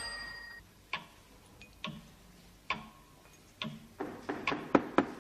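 Sharp ticks or knocks, about one a second, then a quicker run of them near the end.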